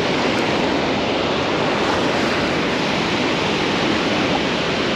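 Steady rush of water pouring through a dam spillway.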